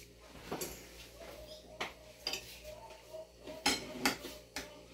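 Cutlery clinking and scraping against plates as food is served and eaten: about six light, sharp clinks spread across a few seconds.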